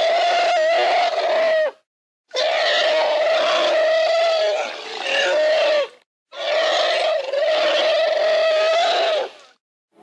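Sound-effect steppe mammoth calls, elephant-like: three long, loud calls in a row, each held on one steady pitch, parted by brief silences. The first lasts about two seconds, the second and third about three to four seconds each.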